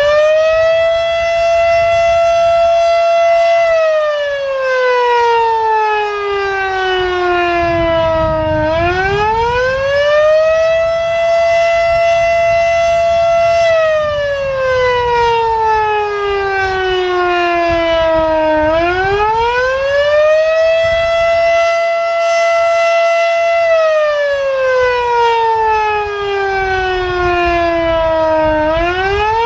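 Federal Sign & Signal Type 7 three-phase, 12-port outdoor warning siren sounding the Attack signal. Its wail rises quickly, holds high for about three seconds, then slowly falls, and it starts again about every ten seconds, three times here.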